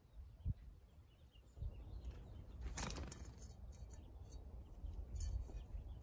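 Faint light clicks of a pine warbler pecking at seed in a metal dish feeder, with a brief rustling burst about three seconds in, over a steady low rumble.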